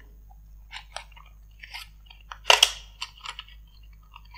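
Plastic blister pack of a USB flash drive crinkling and clicking as it is pried open by hand from its card backing. The clicks come in short scattered bursts, with a louder crackle about two and a half seconds in.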